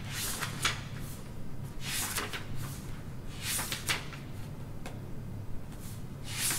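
Quiet library room tone: a steady low hum, with a handful of short rustles and soft knocks scattered through it.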